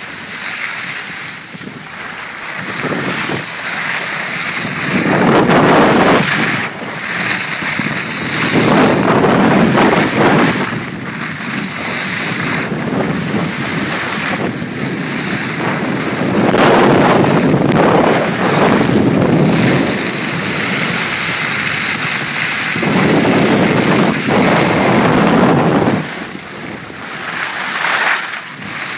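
Wind buffeting the microphone in loud, irregular surges while skiing downhill, over a steady hiss of skis sliding on snow.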